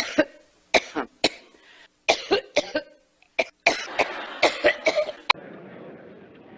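A woman coughing in a prolonged fit: a rapid string of harsh coughs with throat clearing, which cuts off abruptly about five seconds in.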